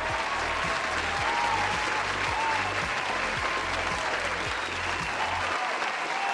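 Crowd applause with a few faint cheers, over background music with a steady bass beat that stops near the end.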